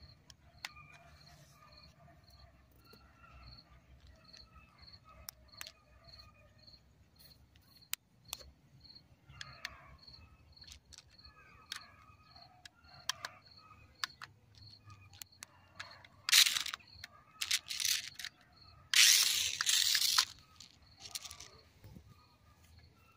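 Adventure Force toy RC stunt car's electric motor and wheels whirring in several short loud bursts about two-thirds of the way through, between quiet stretches of scattered clicks as the car and its controller are handled. A faint high tick repeats about twice a second underneath.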